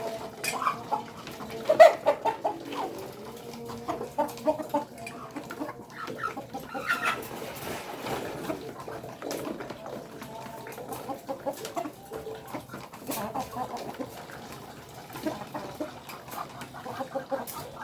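Village chickens (ayam kampung) clucking on and off, with scattered sharp clicks and knocks among them.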